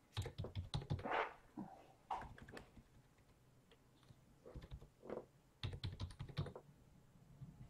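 Typing on a computer keyboard: quick runs of keystroke clicks, with a pause of about two seconds in the middle.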